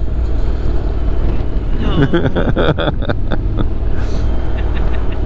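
Motorcycle riding along with a steady low engine drone under road noise, and a rougher, irregular patch with a few clicks from about two to three and a half seconds in.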